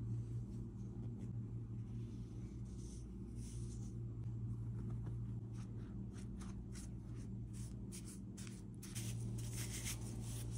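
Silicone spatula scraping and stirring dry semolina into a bowl of wet batter: short scratchy strokes that grow busier in the second half, over a steady low hum.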